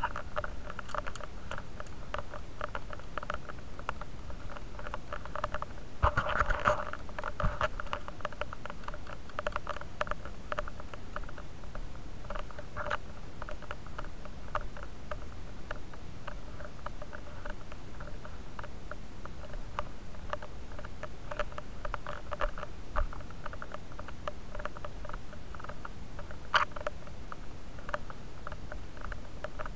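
Continuous scratchy rustling and crackling from a body-worn action camera rubbing against the wearer's gear, with a few sharper clicks about six to seven seconds in and one near the end.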